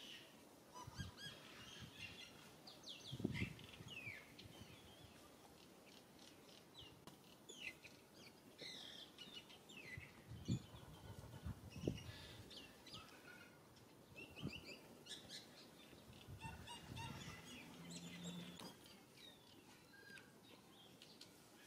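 Faint birds chirping and calling, many short calls overlapping, with a few soft low thumps here and there.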